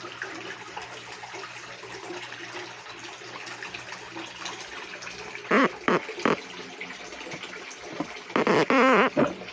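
Consul CWS 12 washing machine with water running and a faint steady hum. Near the end come two loud bouts of wavering, sputtering gurgles, the first broken into three short pulses and the second longer.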